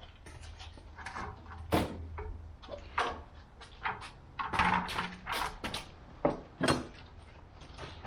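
Irregular knocks, clicks and short rustles of objects being handled and set down, with a faint low hum underneath.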